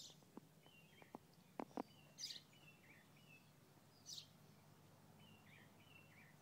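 Faint background birdsong: short, falling chirps repeated in little phrases. A few small sharp clicks come in the first two seconds, and there are two brief hissy rustles, about two and four seconds in.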